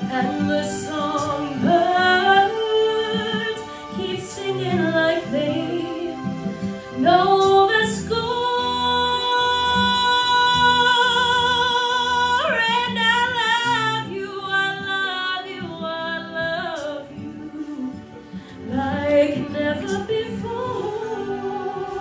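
A girl singing a slow ballad solo into a microphone over instrumental accompaniment, holding one long note with vibrato about halfway through.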